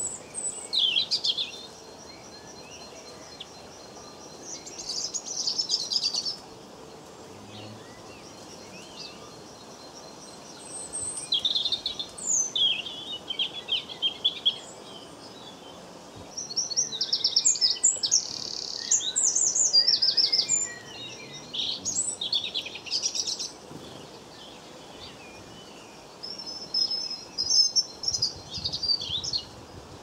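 European goldfinches twittering in repeated bursts of rapid, high, tinkling song, each phrase lasting from about a second to several seconds, with the longest and loudest run in the middle.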